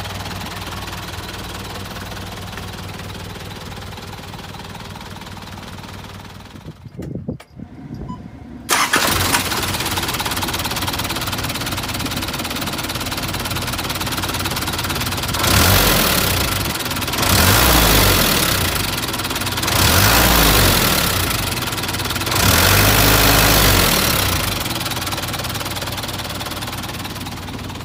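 Mitsubishi 4D33 four-cylinder diesel engine running at idle. After about seven seconds the sound drops almost to silence for a couple of seconds, then the engine comes back in suddenly. It is then revved four times in short bursts before settling back to idle.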